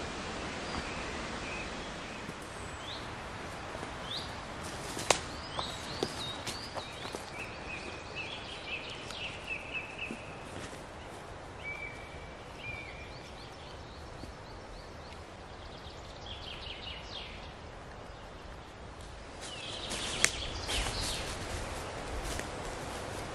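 Woodland ambience: scattered bird calls and song over a steady background hiss, with a couple of sharp clicks. Near the end, footsteps rustle through dry fallen leaves.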